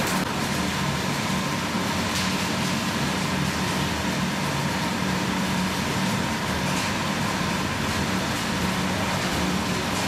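Olive mill's washing and sorting machinery running: a steady mechanical hum with a constant rushing noise as olives are shaken along the vibrating stainless-steel line.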